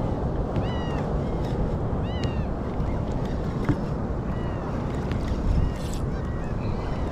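Seabirds calling over the open sea: short, high calls that rise and fall, heard several times in ones and pairs. Steady wind and water noise runs underneath.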